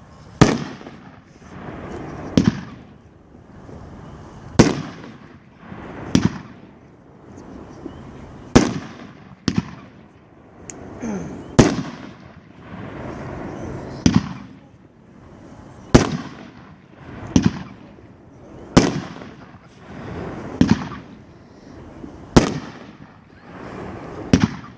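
World Class 'American Celebration' 500 gram consumer fireworks cake firing: a sharp, loud bang every one to two seconds, each trailing off in echo.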